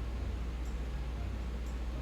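Steady low hum with a faint hiss behind it, and two faint ticks about a second apart.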